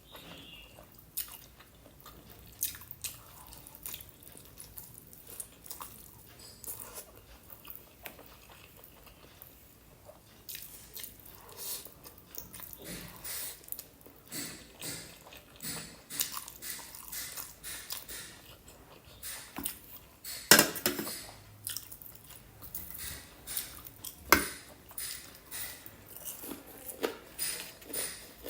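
Close-miked eating sounds: a person biting and chewing crispy fried chicken, with many short crunches and mouth clicks. They are sparse at first and come thicker after about ten seconds, with two sharp, loud crunches about two-thirds of the way through.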